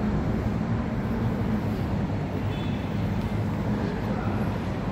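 Steady rumble of city traffic, an even low noise with no single vehicle standing out.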